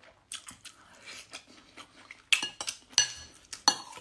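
Cutlery clinking and scraping against a ceramic plate, a cluster of sharp ringing clinks in the second half, after a few softer clicks.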